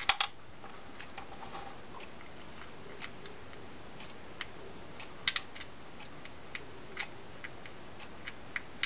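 Small, irregular clicks and taps of tiny screws being handled and set by hand into the graphite side plate of a Newell C229-5 fishing reel, the sharpest just after the start and about five seconds in.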